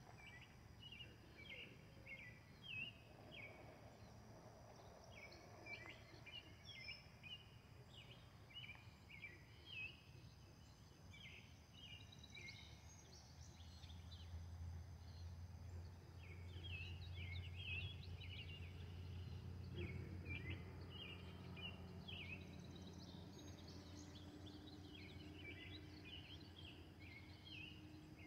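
Faint chirping of birds: many short, high calls, on and off throughout, over a faint low hum that swells in the middle.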